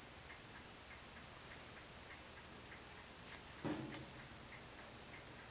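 Faint, regular ticking, about two ticks a second, like a clock, with one short low sound about three and a half seconds in.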